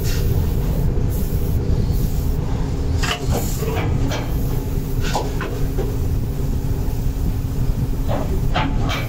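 Gravity-feed paint spray gun hissing in short bursts as silver paint is sprayed onto a muffler, over a steady low rumble of workshop machinery, with a few sharp knocks.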